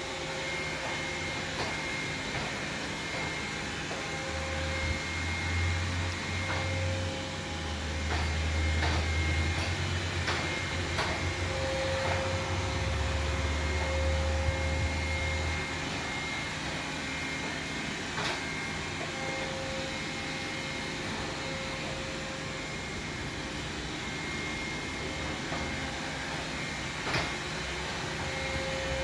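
Xiaomi robot vacuum running with a steady whir and a faint whine, with a few sharp clicks or knocks now and then. A deeper low hum joins for about ten seconds, starting a few seconds in.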